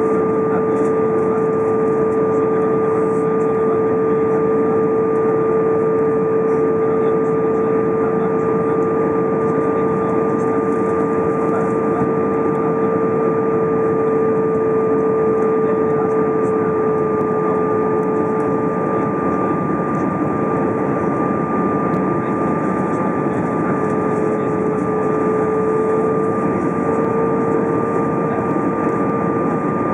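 Cabin noise of an Airbus A320 on final approach with flaps extended: a steady rush of engine and airflow noise with a steady low hum and a fainter, higher whine held on top.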